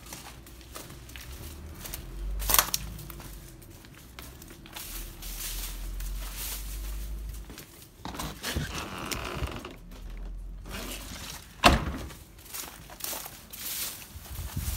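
Footsteps and phone-handling noise from someone walking while filming, over a steady low rumble, with two sharp knocks: one about two and a half seconds in and a louder one about twelve seconds in.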